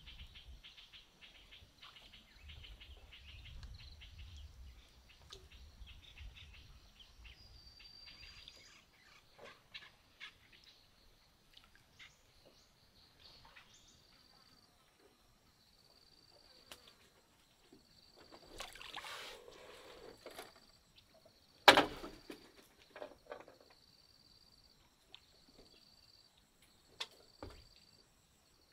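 Tropical forest ambience: a faint high chirp repeating about every second and a half, with scattered rustles and light knocks, the loudest a single sharp knock about three-quarters of the way through.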